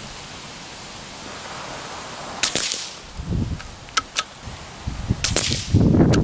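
Suppressed Tikka T1x .22lr bolt-action rifle firing Winchester 42 gr subsonic rounds: a sharp shot about two and a half seconds in and another just after five seconds, with two quick clicks between them. Under it, a steady hiss and low rumbling gusts of wind on the microphone.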